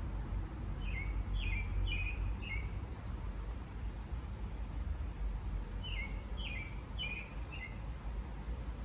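A small songbird singing a short phrase of four quick chirps, each sliding downward, repeated about five seconds later, over a steady low rumble.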